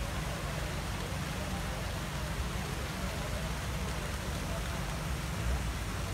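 Busy city square ambience: a steady rumble of traffic under the murmur of many people talking.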